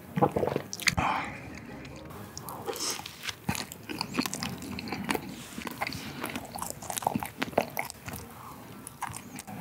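Close-miked chewing of a soft, cream-filled Knotted vanilla cream donut: many small wet mouth clicks, loudest in the first second.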